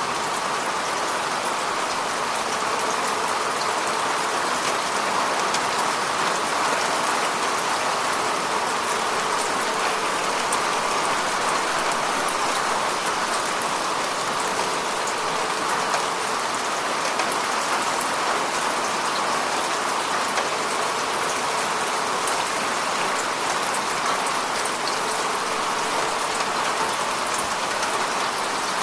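Steady rain falling: an even hiss of rainfall with many fine drop ticks, holding the same level throughout.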